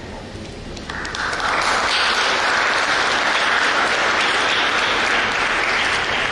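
Audience applauding, starting about a second in, building quickly and then holding steady.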